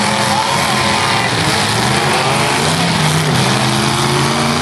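Engines of several full-size demolition derby cars running hard at once, their pitches rising and falling as they rev, in a loud continuous din.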